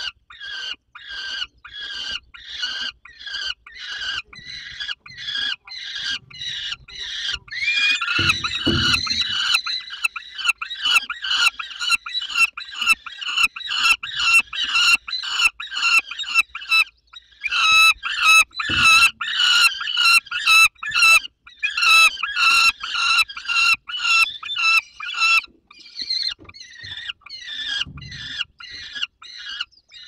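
Young peregrine falcons calling over and over to beg for food while prey is eaten on the nest, harsh repeated calls about two to three a second, louder from about eight seconds in. Two dull thumps, one about eight seconds in and one near nineteen seconds.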